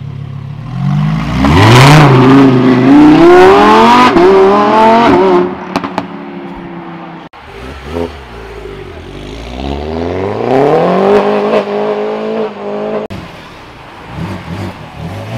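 A Lamborghini Huracán's V10 revving hard as it pulls away, climbing in pitch through a couple of gear changes. About eight seconds in, a Mini John Cooper Works GP's four-cylinder accelerates away, less loud.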